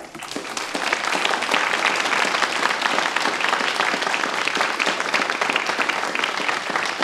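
Large seated audience applauding, the clapping building up over the first second and then holding steady.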